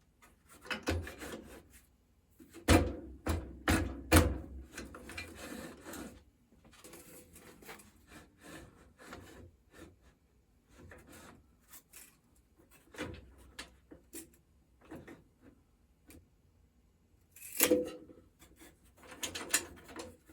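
Wood and metal handling sounds as a wooden rip fence extension is positioned and clamped onto a table saw fence with fence clamps. A cluster of sharp knocks comes about three seconds in, scattered rubs and clicks follow, and another knock comes near the end.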